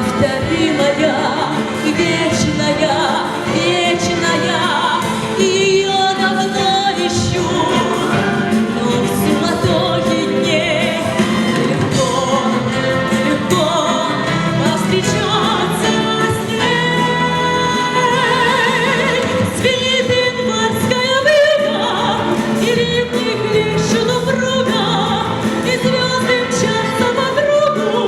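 A female singer singing a Russian song with vibrato over instrumental accompaniment.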